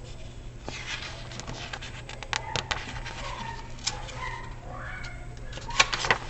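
Paper crackling and rustling with many small clicks as the pages of a hardcover picture book are handled and turned; the pages are somewhat sticky. A few faint short squeaks come through in the middle.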